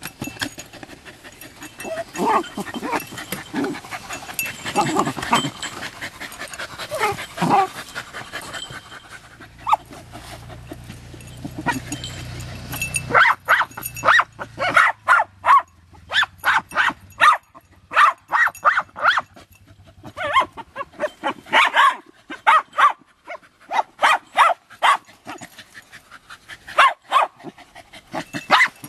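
Jagdterriers barking at an armadillo: softer, mixed yips and sounds for the first dozen seconds, then rapid strings of short sharp barks, several a second, from about halfway on.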